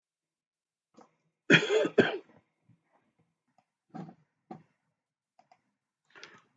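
A person coughs twice in quick succession, about a second and a half in, followed by a few faint short sounds.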